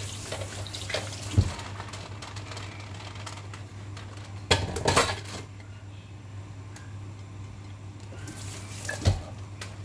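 Dishes and utensils clattering at a kitchen sink during washing: water running that stops about two seconds in, then sharp knocks of a bowl or pan set down and handled, a cluster of them in the middle and one more near the end.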